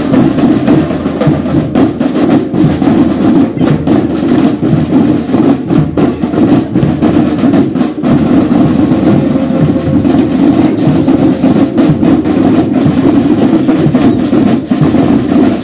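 Marching band playing in a street parade, its drums keeping a steady, busy beat with many sharp hits throughout.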